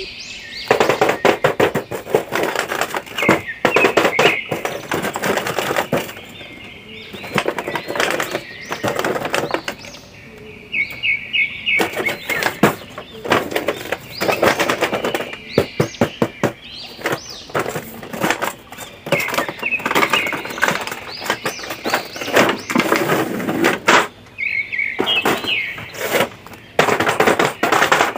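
Cardboard box and clear plastic blister tray of a toy action-figure set being handled and opened: rapid crinkling, crackling and tapping of plastic and cardboard, with a few short high squeaks.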